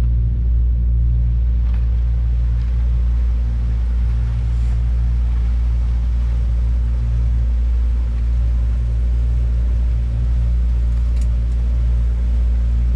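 A boat's outboard motor running at a steady speed with the boat under way, giving a constant low drone, with a couple of faint clicks of gear handling.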